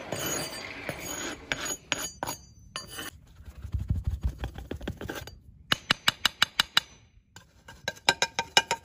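A hand-held metal tool scraping and tapping on the bottom of a sand-cast aluminium frying pan to clear off the moulding sand. It rasps for the first few seconds, then gives quick runs of sharp metallic taps, about six a second, in the second half.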